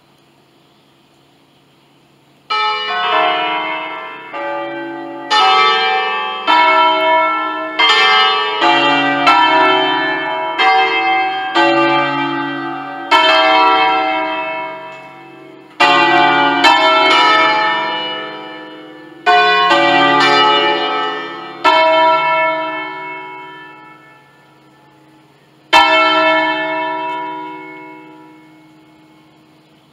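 Bronze church bells of a five-bell peal in D, cast by Pruneri in 1953, ringing in uneven, overlapping strokes that each ring on. The ringing begins about two and a half seconds in. The strokes grow sparser, and one last single stroke about 26 s in is left to die away.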